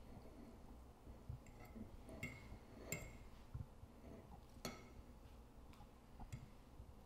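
Faint clinks and taps of forks on dinner plates, about half a dozen light strikes spread over several seconds, over quiet room tone.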